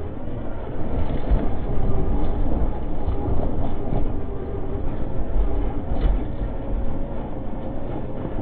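Scale RC tow truck's electric motor and gearbox whining steadily as it crawls over rough dirt and rock, with a low rumble and the rattles and occasional knocks of the truck, its load and the towed car jolting along.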